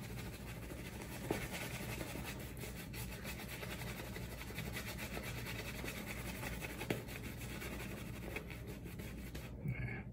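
Large badger-hair shaving brush (a Simpson Chubby 3 in super badger) scrubbing soap lather onto a bearded face: a steady, fast bristly scratching and rubbing that stops near the end.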